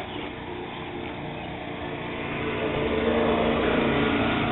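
A motor vehicle's engine hum with a steady pitch, growing louder about halfway through as it draws near.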